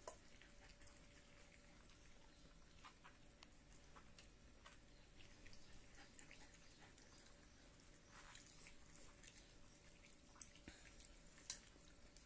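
Scottish terrier puppies eating meat from a plastic bowl: faint chewing and scattered small clicks, with one sharper click near the end.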